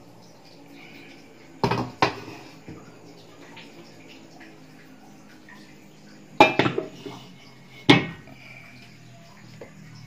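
Metal cookware clanking: two knocks about two seconds in, then two louder clanks with a brief metallic ring about six and a half and eight seconds in as an aluminium wok is set on the stove.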